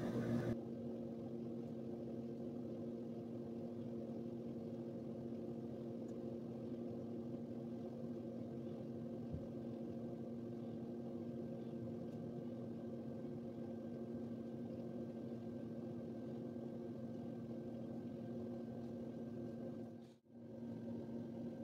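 A steady low hum with a faint hiss, cutting out for a moment near the end.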